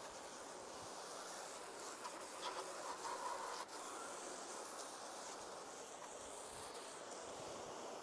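Faint, steady hiss, a little brighter for about a second roughly two and a half seconds in.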